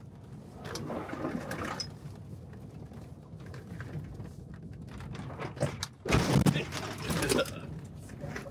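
In-cabin noise of the electric Ford F-150 Lightning Switchgear driven hard on a muddy dirt track: tyre and chassis noise with clods of mud striking the body. A loud rush of noise comes about six seconds in, and a smaller one about a second in.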